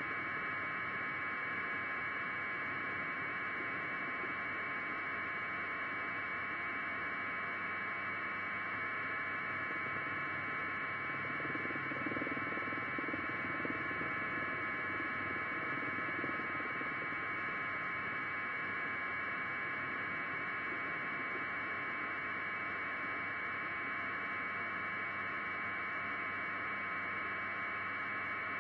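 Steady hiss with a few faint high steady tones running through it, unchanging throughout.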